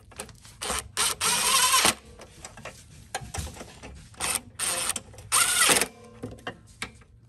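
Cordless brushless power tool running in several short bursts, the longest about a second in, driving the carburetor mounting bolts of a Briggs & Stratton mower engine back in.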